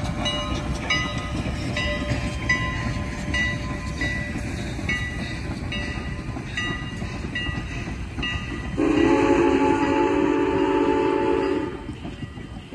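Passenger coaches rolling past with a steady low rumble and a run of short high squeaks. About nine seconds in, the 2-6-0 Mogul steam locomotive's whistle sounds one long blast of about three seconds.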